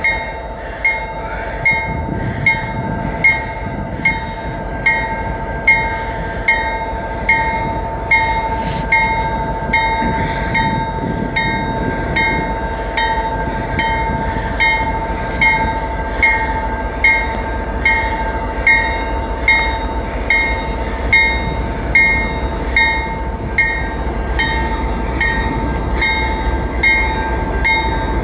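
Railroad crossing bell ringing steadily, a little over once a second, over a steady tone. A low rumble from the approaching diesel freight train, led by a GE C44-9W locomotive, builds toward the end.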